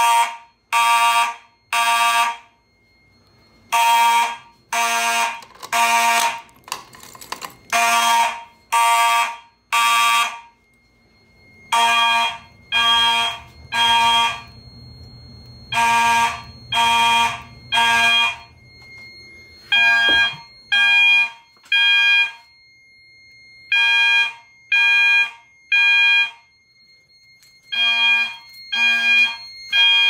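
Fire alarm horns sounding the temporal-three evacuation pattern: three half-second blasts, a pause, then repeat, every four seconds. The alarm was set off by a manual pull station.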